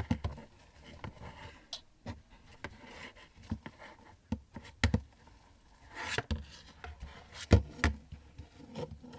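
Sticky homemade slime being handled and pulled, giving scattered sharp clicks and small pops. The slime is still tacky and hard to peel off.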